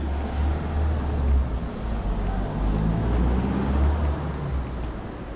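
Steady low rumble of city street noise, loudest through the middle.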